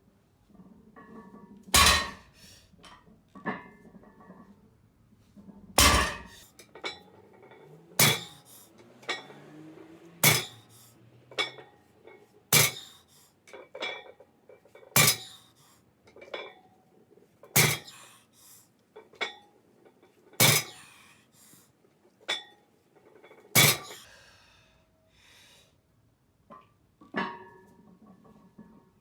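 Loaded barbell with metal plates clanking down on the floor over and over, a loud clank about every two to three seconds, with lighter clinks and a short metallic ring between.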